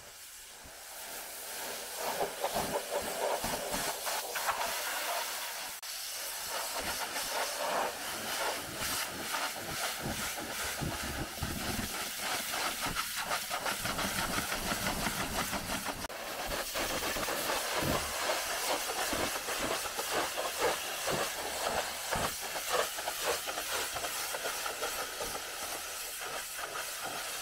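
Pressure washer spraying a high-pressure water jet onto a car's body, a continuous hiss that flickers in level as the lance moves. It starts quieter and grows louder about two seconds in.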